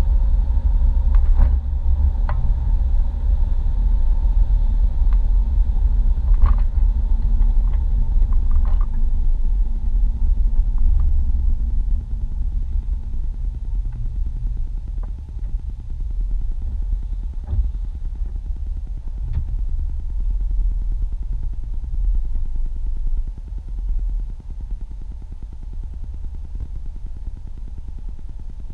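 Low rumble of a car driving on a highway, heard from inside the cabin, with a few light clicks and rattles in the first several seconds. The rumble drops in level about twelve seconds in and again near the end as the car slows in traffic.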